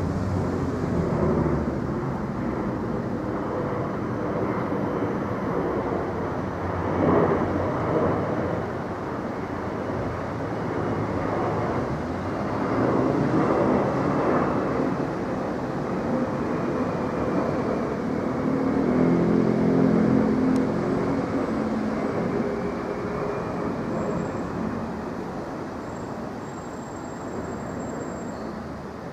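Four-engined British Airways Boeing 747-400 jet flying overhead, its engines making a steady rumble that swells twice and then slowly fades as it climbs away.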